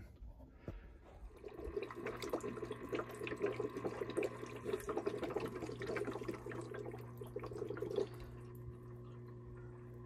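Small submersible fountain pump running in a bucket of vinegar, with a steady hum, while the return hose sputters and gurgles vinegar back into the bucket as air is purged from the tankless water heater's lines. About eight seconds in the sputtering stops and only the steady hum remains as the flow circulates smoothly.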